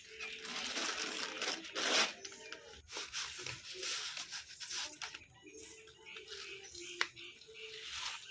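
Irregular rustling and tearing noises in a series of short bursts, the loudest about two seconds in, with a sharp click near the end.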